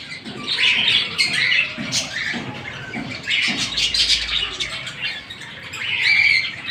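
A flock of budgerigars chattering and chirping in repeated bursts of high chirps.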